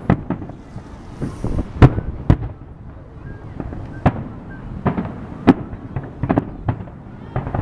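Fireworks and firecrackers going off all around: about a dozen sharp bangs at irregular intervals over a continuous rumble and crackle of more distant ones, the loudest bang about two seconds in.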